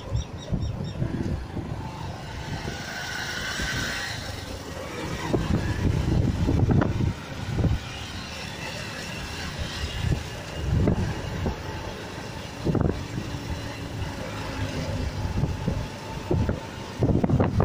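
Several small commuter motorcycles running at speed on a highway, heard from a moving bike, with wind buffeting the microphone in irregular gusts.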